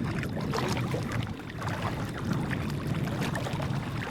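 Kayak paddling through choppy water: paddle strokes and water splashing and slapping against the hull in quick irregular bursts, over a steady low rumble of wind.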